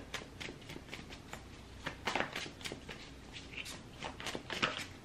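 Tarot cards being shuffled and handled: a string of irregular soft flicks and clicks, thickest about two seconds in and again near the end.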